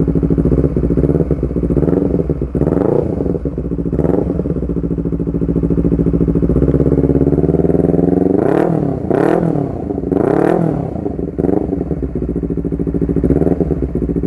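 Honda CBR250RR parallel-twin engine running through an R9 GP series stainless-steel full-system exhaust with a short silencer, idling and blipped repeatedly into short revs that rise and fall, busiest in the second half. The exhaust note is loud and blaring.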